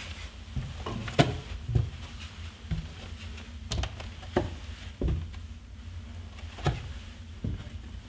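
Footsteps on old wooden boards, the timber creaking and knocking irregularly under each step.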